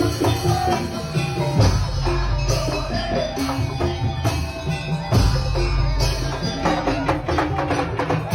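Tong-tong percussion ensemble music: heavy drums and jingling percussion under a melody. The deep drumming drops out briefly twice.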